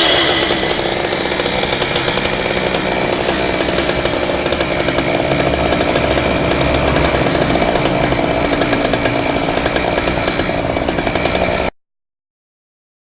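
Chain saw cutting through an iron water main pipe under load. Its engine pitch drops as it bites in at the start, then it runs steadily with a harsh grinding rasp. It cuts off abruptly near the end.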